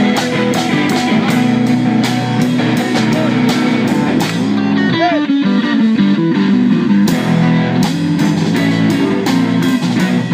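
Live rock band playing, electric guitar over a steady drum-kit beat, with a short break in the drumming about halfway through.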